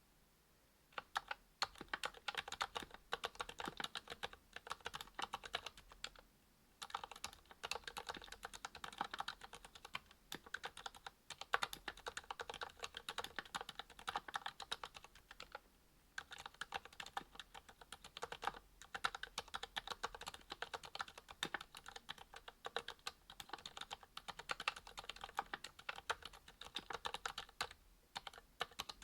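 Typing on a Monstargear XO V2 aluminium mechanical keyboard with a brass plate, GMK keycaps and lubed ZealPC Sakurios silent linear switches: quick runs of keystrokes, starting about a second in, with short pauses twice along the way.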